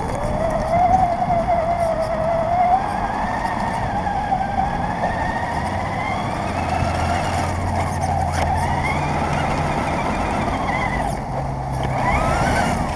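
Radio-controlled car's motor whining, its pitch rising and falling as it speeds up and slows, over rough tyre and road noise from the car's own onboard camera.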